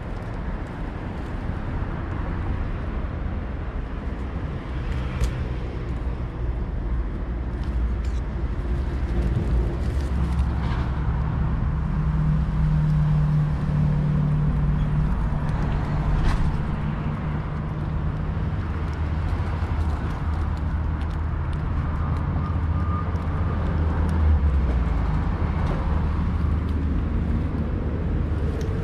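Steady road-traffic rumble, with an engine hum that swells about ten seconds in and eases off a few seconds later. A few faint clicks sit on top.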